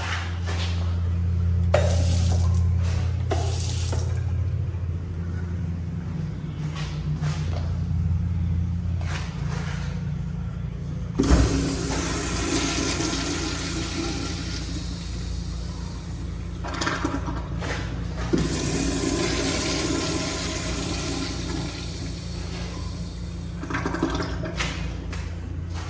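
A restroom fixture flushing: a sharp clunk about eleven seconds in, then rushing water for about twelve seconds. A steady low hum runs under the first nine seconds.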